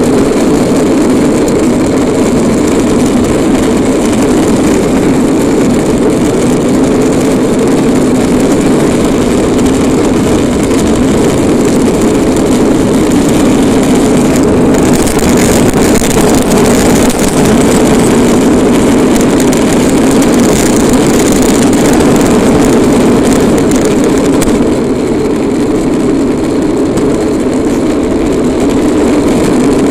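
Wheels of a Bobby-Car rolling fast down an asphalt road: a loud, steady rumble, easing slightly about 25 seconds in.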